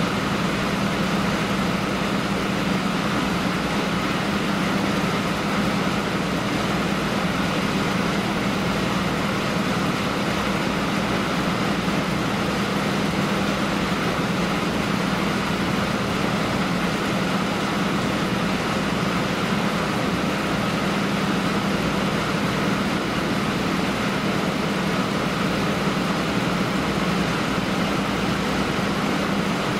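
Steady mechanical drone with a constant low hum, unchanging throughout, from engines or machinery running at the quayside.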